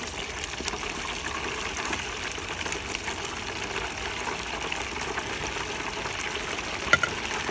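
Coated pork chop pieces deep-frying in hot oil in a T-fal electric deep fryer: a steady bubbling sizzle during the second fry that crisps them. A sharp click near the end.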